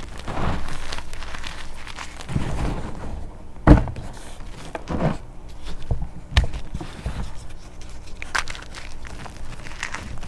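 Crunchy chalk coated in black paste being crushed: irregular crunching and crackling, with two sharp thuds, one about a third of the way in and one just past halfway.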